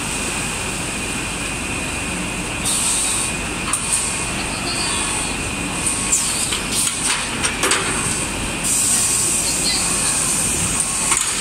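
Stretch film production machinery running: a steady mechanical noise with two constant high whines, and scattered clicks and knocks about halfway through.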